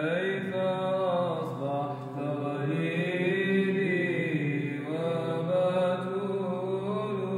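Byzantine chant: a male voice sings long, melismatic held notes that glide up and down, starting sharply at the beginning, over a steady low held drone note (ison).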